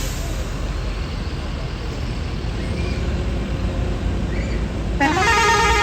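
Steady low rumble of idling bus engines and traffic. About five seconds in, a tour bus's telolet basuri horn starts up, several tones sounding at once with one sliding upward.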